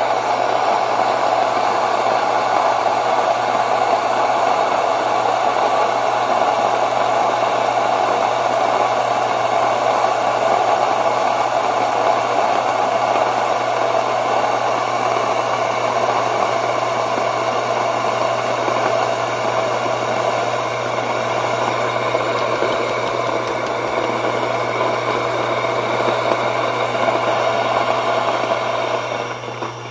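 Mockmill electric stone grain mill running steadily, its motor humming under the grinding rasp of the stones as it mills oven-dried nixtamalized corn into flour. Near the end the grinding noise falls away, leaving the motor's hum.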